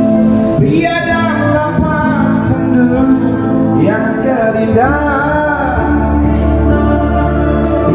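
A man singing karaoke into a microphone through an amplified karaoke system, over a backing track with a steady bass line, holding long notes with vibrato around the middle.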